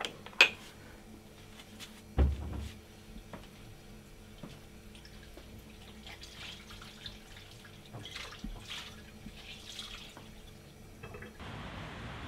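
A sharp clack just after the start and a dull thump about two seconds in, then a kitchen sink tap running in several short spurts, with water splashing as dishes are rinsed. Near the end it gives way to a steady outdoor hiss.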